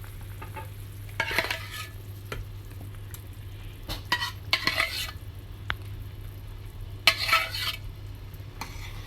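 A spoon stirring the cooked dal into the pot of simmering sambar, scraping the pot in three main strokes, with a sharp click a little after the middle, over a steady low hum.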